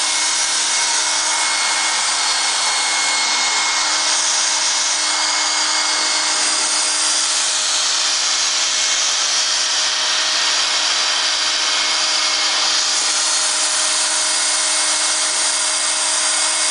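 Hair dryer running steadily: an even rush of air over a constant motor whine.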